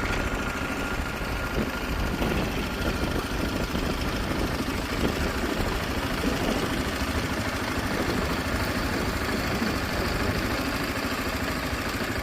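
Motor vehicle running steadily: an even rumble of engine and road noise with no change in pace.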